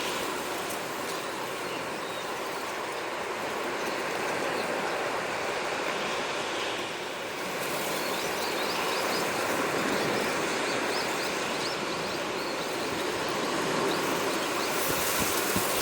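Steady wash of sea waves on the shore, with faint short chirps of small birds from about halfway through.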